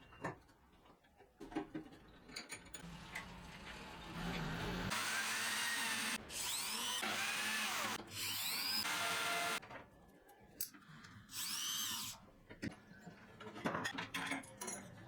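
Power drill driving screws into plywood in several runs of a second or two, the motor's pitch rising and falling within each run. Scattered knocks and clicks of handling the parts come before and after.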